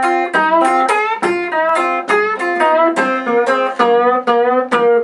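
Blues guitar fill played between sung lines: a run of single plucked notes, about three a second, some of them bent in pitch.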